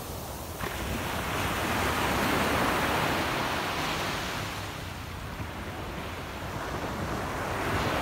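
Small waves breaking and washing up a sandy beach; the surf swells about half a second in, eases off midway and builds again near the end. Wind buffets the microphone throughout with a low rumble.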